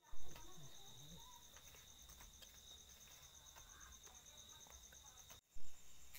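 A high, rapidly pulsing insect trill runs steadily in the background, with faint ticks and scrapes of a hand carving tool on wood. Two brief louder knocks, one at the very start and one about five and a half seconds in.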